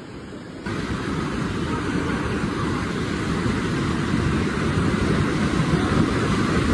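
Steady roar of rushing water from a waterfall, stepping up abruptly in level less than a second in and then holding steady.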